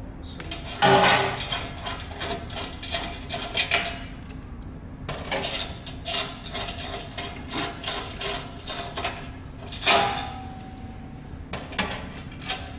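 Hand tools and loosened parts clinking and knocking against the stainless-steel shaping part of a tea bag machine as its screws are undone. Irregular clicks and taps, with a louder metal clank about a second in and another near ten seconds in that rings briefly.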